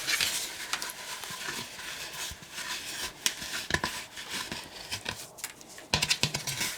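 Dry gourd seeds and papery pulp being scraped and pulled out of a hollow dried gourd: scratchy rustling with irregular clicks and knocks, busiest near the end.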